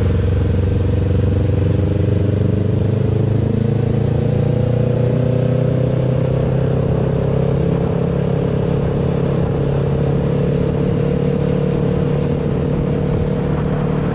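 Motorcycle engine running steadily at cruising speed while being ridden, with wind and road noise over it.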